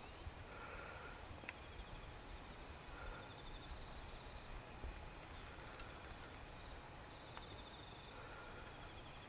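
Faint insects chirping in the scrub: a steady high buzz with short pulsing trills that come again every couple of seconds, over a low rumble and a few light clicks.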